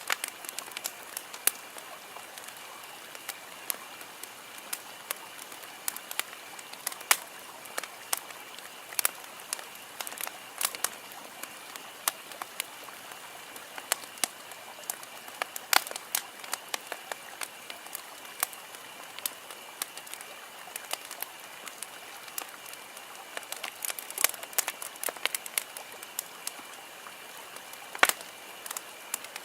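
Campfire crackling: a steady hiss of burning wood with frequent irregular snaps and pops, a few of them sharper and louder.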